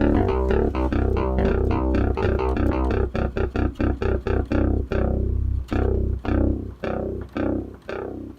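Roland Juno-106 analog synthesizer playing a patch: a fast run of short, repeated notes over a deep, sustained bass.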